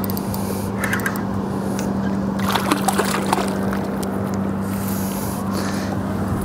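An electric trolling motor holding the boat in position, humming steadily on one low pitch, with a few faint knocks about one to three seconds in.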